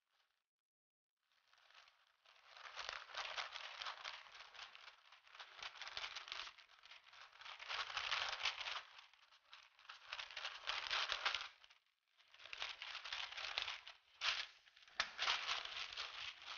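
Wooden rolling pin pressed over pastry dough between sheets of baking paper: the paper crinkles and rustles in long rolling strokes, about six passes of a couple of seconds each with brief pauses between, starting about a second in.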